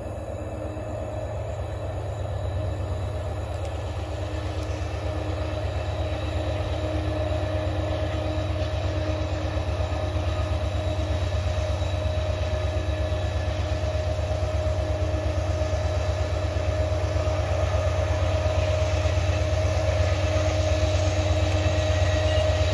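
Diesel locomotives of an approaching CSX freight train: a steady low engine sound with faint steady tones above it, growing gradually louder.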